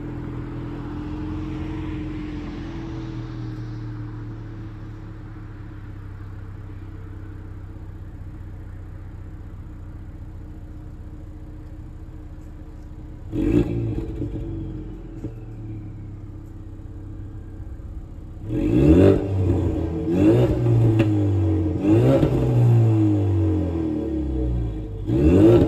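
2020 Ford Mustang EcoBoost's 2.3-litre turbocharged four-cylinder running through a catless downpipe and the stock cat-back exhaust: a steady idle, one sharp rev a little past halfway, then a run of quick revs near the end, each rising fast and falling back to idle.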